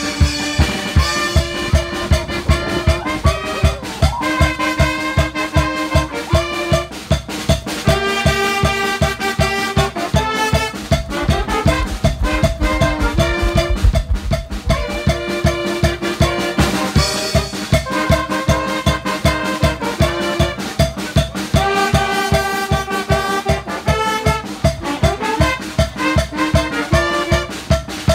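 Brass band playing carnival dance music: trumpets, trombone and alto saxophone carry the melody over a drum kit's steady beat.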